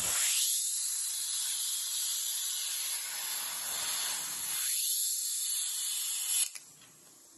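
Daihen D8000 plasma cutter torch hissing with its jet of compressed air. The hiss starts abruptly, wavers in tone, and cuts off sharply about six and a half seconds in.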